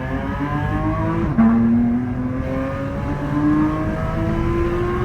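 Porsche 992 GT3's naturally aspirated flat-six, breathing through an FI aftermarket exhaust, pulling under gentle throttle. The revs climb slowly, drop at an upshift about a second and a half in, then climb again.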